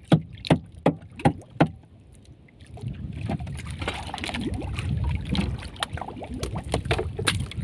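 Longline being hauled in hand over hand over the boat's edge: five sharp strokes, about three a second, in the first second and a half, then after a short pause a steady rushing, splashing noise as a hooked fish is lifted from the water and brought aboard.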